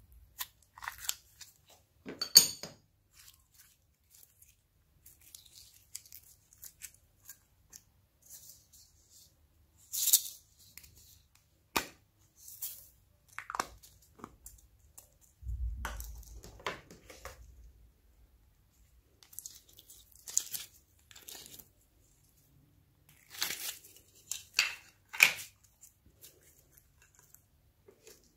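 Glossy slime handled and peeled out of plastic containers: scattered sticky crackles and pops at uneven intervals, the loudest a sharp pop about two seconds in.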